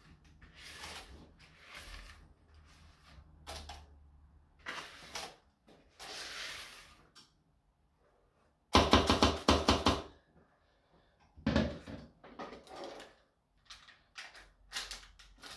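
Silicone spatula scraping brownie batter off the sides of a plastic mixing bowl in short repeated strokes, then spreading it in a paper-lined metal baking tin. About nine seconds in comes the loudest sound, a quick run of sharp knocks lasting about a second.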